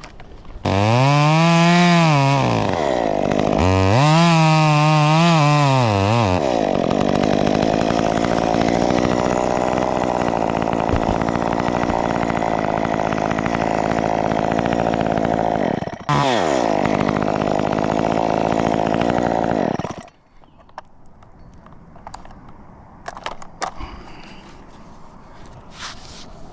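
Top-handle chainsaw revved up and down twice, then held at a steady high speed cutting through the tree stem. It dips for a moment and runs on a few seconds more before cutting off suddenly. A few light knocks follow.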